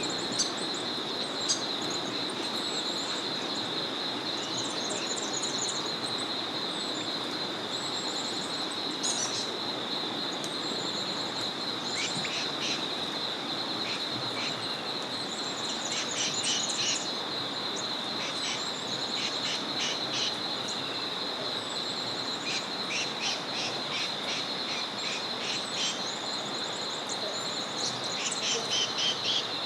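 Small forest river flowing as a steady rush, under a continuous high pulsing trill, with birds chirping and calling at intervals, in clusters of short calls around the middle and again near the end.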